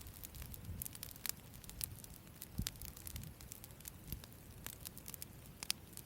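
Wood campfire crackling, with a steady run of small sharp snaps, a few louder pops, and a low rumble of the flames underneath.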